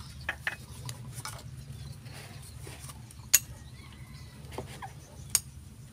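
Metal spoon scooping rice and tapping against a plastic tub and small rice bowls: a few scattered sharp clinks, the loudest about halfway through, over a steady low hum.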